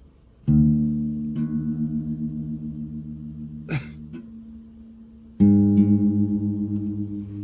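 A guitar being tuned: strings plucked and left to ring, about half a second in and again about five seconds in, each note dying away slowly with a slow wavering as two pitches are compared. A short squeak comes near the middle.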